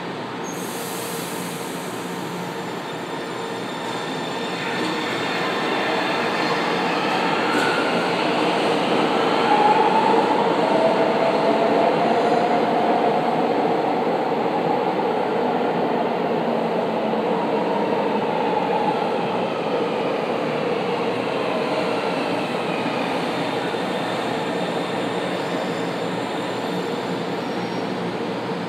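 São Paulo Metro Line 1 subway trains in an underground station. One train pulls out, and the running noise builds over the first ten seconds with a whining motor tone that glides in pitch. Another train then runs in and slows to a stop at the platform.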